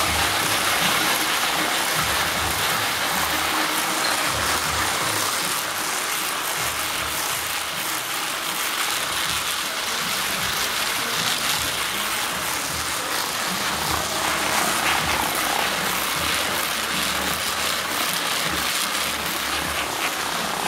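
Jute rope-making machinery running in production: a steady, continuous mechanical din of motors and rotating twisting heads, with an uneven low rumble beneath a dense rushing noise.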